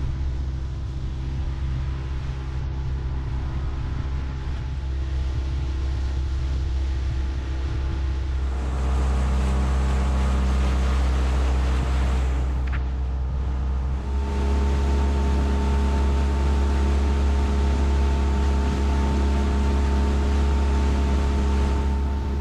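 Honda BF15 four-stroke outboard motor running at speed on an inflatable boat, a steady engine hum with water rushing past the hull. The engine note changes and grows a little louder twice, about a third of the way in and again past halfway.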